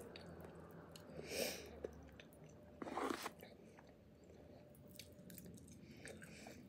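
A person chewing a mouthful of pupusa close to the microphone: soft, wet mouth sounds and small clicks, with two louder bursts about one and a half and three seconds in.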